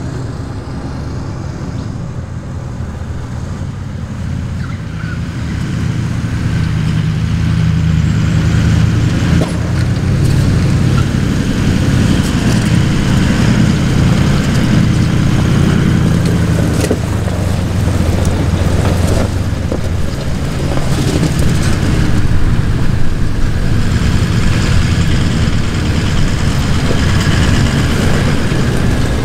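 Four-wheel drives driving slowly over loose river stones and gravel: engines running at low revs with tyres crunching on the stones. The engine sound grows louder a few seconds in as a vehicle nears.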